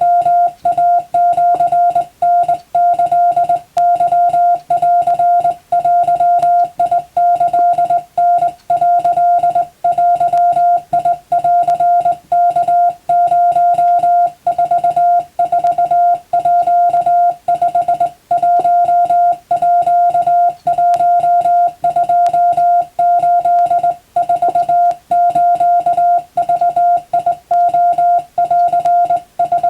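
Morse code (CW) tone sending a steady stream of dots and dashes at one fixed pitch, switching on and off without a break: Japanese wabun telegram practice text.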